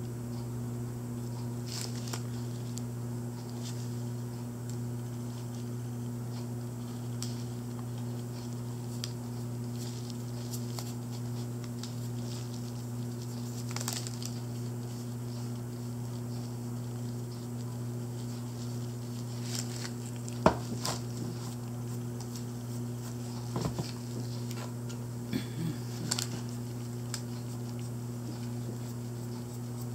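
Faint scratchy rustles and small clicks of gloved hands and a paintbrush working over a small painted figurine, with one sharper click about 20 seconds in, over a steady low hum.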